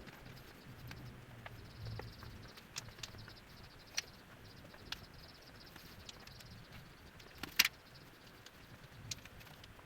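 Scattered light clicks and taps of tools and plywood parts being handled, with one sharper click about seven and a half seconds in, over a low hum.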